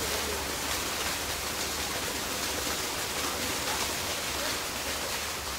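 Steady rush of falling spring water, an even unbroken splashing.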